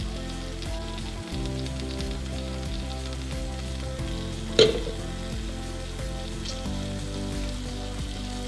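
Steady sizzling of food frying on the stove, under soft background music, with one sharp knock about halfway through.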